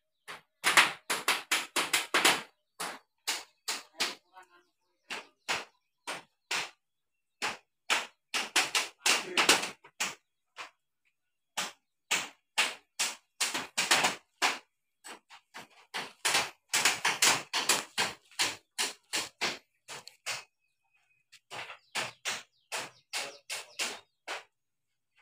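Hammer blows on a bamboo frame, in quick runs of sharp knocks with short pauses between them.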